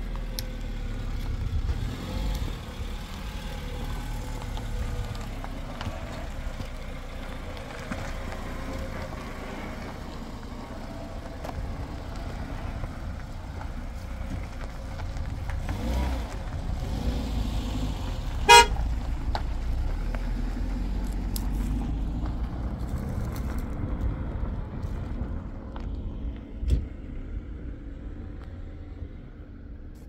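Car engine running as the sedan pulls away along a dirt track, with one short horn toot about two-thirds of the way through. The engine sound fades near the end as the car drives off.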